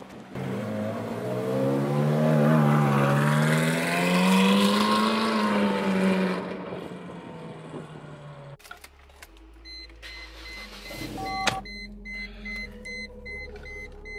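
A car engine revving loudly as it drives past, its pitch rising and falling twice, cut off abruptly about eight and a half seconds in. Then a low steady engine rumble with an electronic beep repeating about three times a second.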